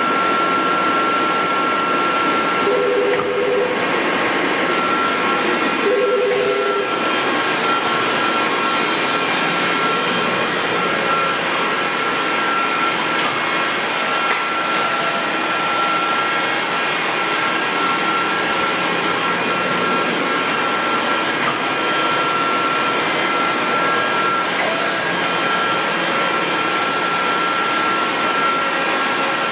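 Mori Seiki NL1500 CNC lathe running under power: a steady machine noise with a constant high whine, and two brief two-note tones in the first seven seconds.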